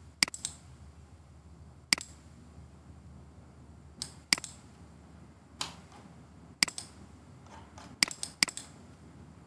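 Computer mouse clicking about ten times at irregular intervals, some clicks in quick pairs, as PDF page thumbnails are selected.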